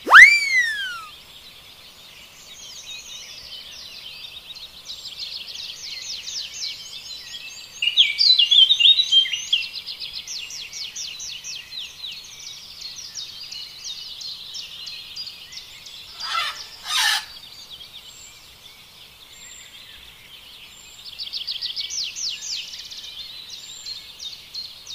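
Many small birds chirping and twittering rapidly and continuously, as from a flock, busiest about a third of the way in and again near the end. A loud falling whistle opens, and two short rasping bursts come about two-thirds of the way through.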